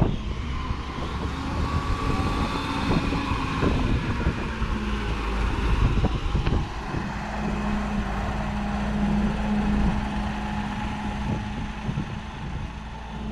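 Diesel engine of an SDLG LG933L wheel loader running as the loader drives past, with a low rumble and a steady drone through the second half.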